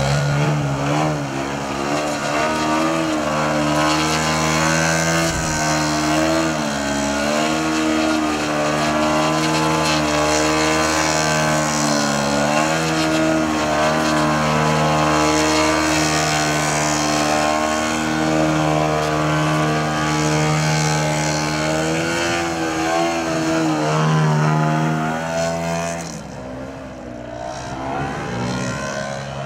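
Large radio-controlled Su-29 aerobatic model plane's 3W-170 twin-cylinder two-stroke petrol engine running hard, its pitch wavering up and down as the throttle is worked. Near the end it falls quieter as the plane moves away.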